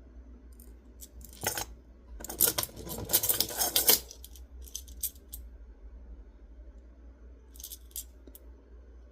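Plastic magnetic building cubes clicking and clacking against each other as they are handled: a few separate clicks, a dense clatter about two to four seconds in, then scattered clicks again toward the end.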